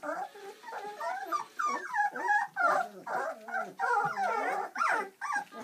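Several Bernese Mountain Dog puppies vocalising together as they crowd a food bowl: a near-continuous chorus of overlapping whines and squeals that rise and fall in pitch.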